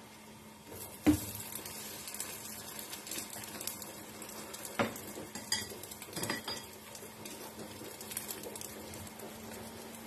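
Food sizzling in a frying pan while a metal utensil knocks and scrapes against the pan, the loudest knock about a second in and a few more around the middle.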